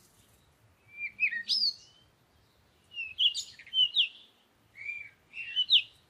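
Birdsong: three short phrases of quick chirping notes that slide up and down in pitch, with brief silences between them.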